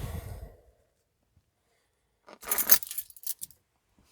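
Keys jangling and clinking in a short burst about two and a half seconds in, after a moment of near silence.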